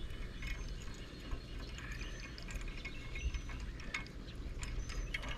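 Light, scattered metallic ticks and clicks of stainless safety wire being worked through the hole in an anchor swivel's shackle pin, over a low steady background rumble.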